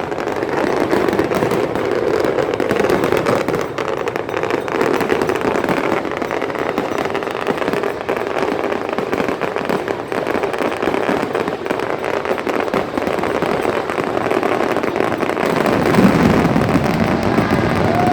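Fireworks crackling and popping continuously over a steady, dense din that grows louder about sixteen seconds in.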